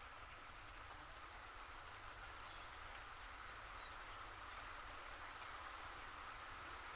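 Faint, steady outdoor rain ambience with a continuous high insect trill over a soft even hiss. One brief tick comes just before the end.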